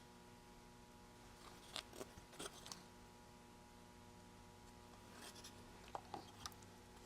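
Near silence with a faint steady hum, broken by two small clusters of faint clicks and ticks about two seconds in and again near six seconds: small electronic parts and tools being handled while fitting components to a kit circuit board.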